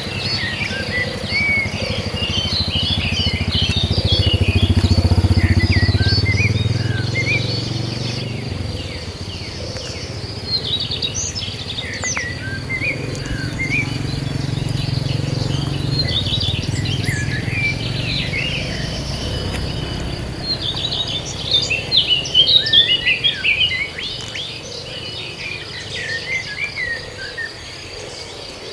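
Many birds chirping over a steady high insect drone in open countryside. A low rumble swells and fades twice, the first time being the loudest thing in the stretch.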